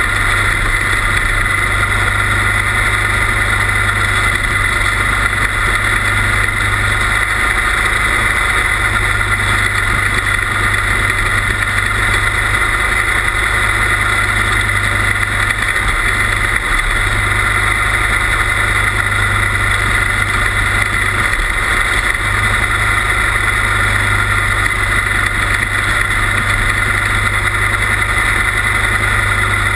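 Quarter midget race car's small engine running steadily at lapping speed, heard from a camera mounted on the car, with little change in pitch or loudness.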